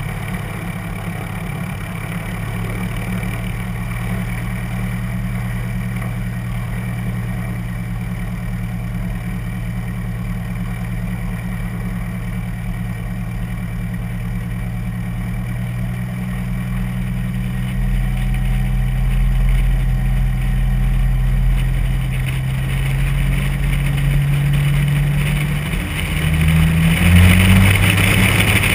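Light single-engine airplane's piston engine and propeller running at low power while taxiing, a steady drone. Near the end the engine note shifts and grows louder as power comes up on the runway, with a rising rush of air.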